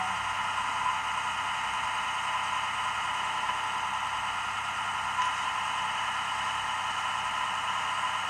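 A steady hiss of background noise with no distinct events.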